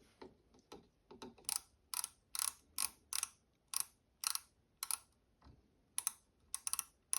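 Micrometer's ratchet thimble clicking in short bursts, about two a second, as it is turned down onto the work to take a measurement.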